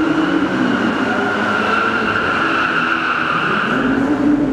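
A Dodge Charger doing donuts, its rear tyres squealing in one long steady screech over the engine held at high revs; the squeal fades out near the end.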